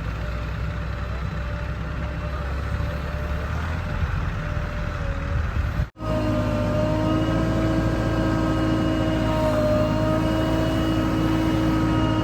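Heavy diesel machinery engine running steadily. A brief cut about six seconds in; after it the engine is a little louder, with a steady hum.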